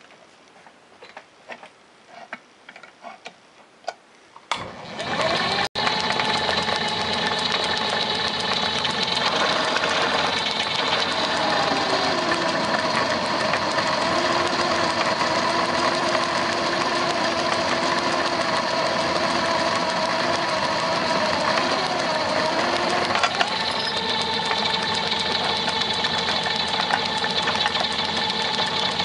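A few light clicks, then about four and a half seconds in a drill press motor starts and runs steadily. From about nine to twenty-three seconds its pitch sags and wavers as a 21/64-inch bit, the tap-drill size for 1/8-inch NPT, cuts into a metal block, then it runs free again.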